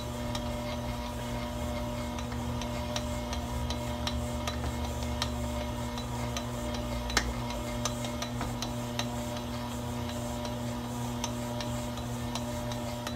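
Electric stand mixer running steadily at a lowish speed, its dough hook kneading a stiff, still-dry bread dough in a steel bowl: a steady motor hum with light, regular ticks about twice a second. The slower speed is chosen so as not to strain the mixer on the heavy dough.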